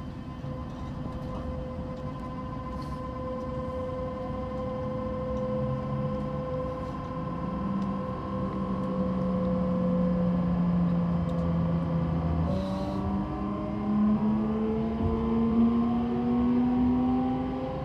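Kintetsu 22000-series electric train pulling away from a station, its VVVF traction inverter and motors whining over wheel-on-rail noise. The whine holds steady tones at first, then switches about two-thirds of the way through to several tones rising in pitch as the train picks up speed.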